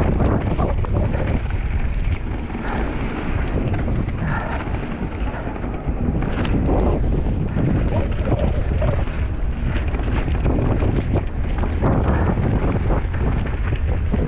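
Wind rushing over the camera microphone and the constant rattle and clatter of a downhill mountain bike descending a wet, rough trail at speed, with knocks from the bike and tyres over the ground.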